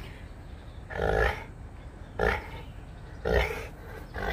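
Saint Bernard puppy grunting with a bowling pin held in its mouth: three short grunts about a second apart.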